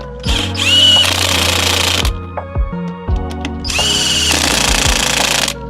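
Impact wrench driving lug nuts back on through a 100 ft-lb torque stick: two loud runs of about two seconds each, the whine rising as it spins up at the start of each.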